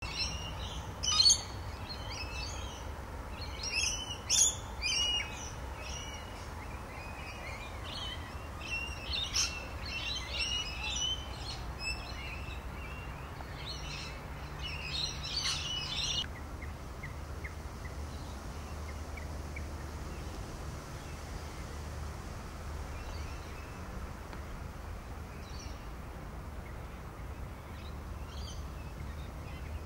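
Birds chirping and calling, many short overlapping calls through the first half, which stop suddenly about halfway through, leaving only a few faint chirps over a steady low rumble.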